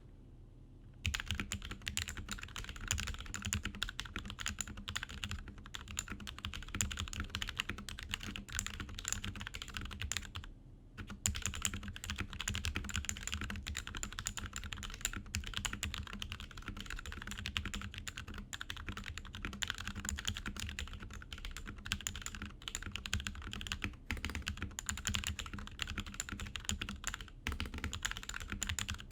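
Continuous typing on a custom mechanical keyboard with lubed and filmed Gateron Ink Black linear switches, a brass plate, a frosted acrylic case and DSA PBT keycaps: a dense, rapid run of keystrokes starting about a second in, with a brief pause about a third of the way through.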